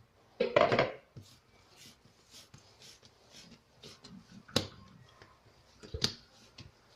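Soft rustles and light taps of hands handling risen brioche dough on a work surface, with a louder rustle near the start and two sharper knocks later.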